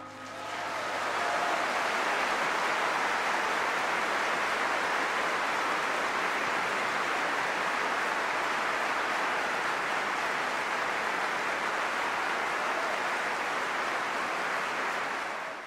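Opera-house audience applauding at the end of a tenor aria: a dense, steady clatter of clapping that swells up over the first second or so and drops away at the end.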